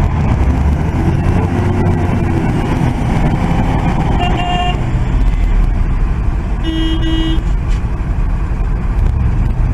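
Heavy semi-truck's diesel engine running under load as it works through deep mud, a steady low rumble. Two short horn toots cut in, a higher one about four seconds in and a lower one about seven seconds in.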